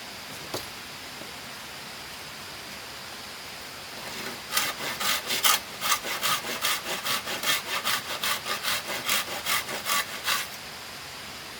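Hand saw cutting with quick back-and-forth strokes, about three or four a second, starting a little after the midpoint and stopping about a second before the end.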